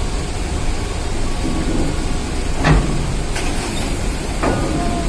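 Steady low rumble of heavy vehicle engines as vehicles unload from a roll-on/roll-off ferry, with three sharp knocks in the second half.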